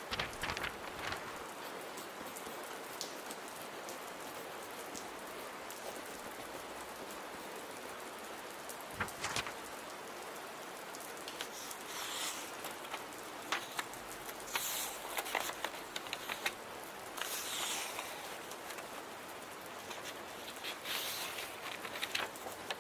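Steady rain pattering against a window. In the second half, short scratchy bursts of a pen writing on paper come every few seconds, with a few soft clicks earlier on.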